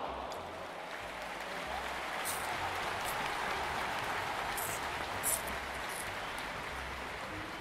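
Steady crowd noise like applause, with a few short sharp clicks scattered through it.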